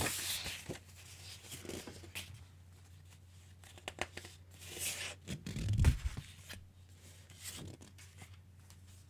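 Sheets of thick patterned cardstock sliding and rustling as they are handled and laid out on a cutting mat, with dull thumps at the start and about six seconds in.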